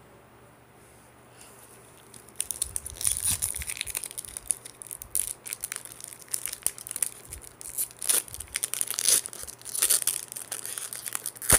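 Foil wrapper of a baseball card pack crinkling and tearing as it is pulled open by hand. The sound starts about two seconds in and continues in irregular crackles, with a sharp snap near the end.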